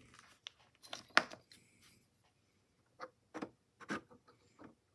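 Scattered light clicks and taps of a metal hobby knife against old Eveready flashlight batteries and the plastic battery compartment of a portable cassette player, the sharpest about a second in.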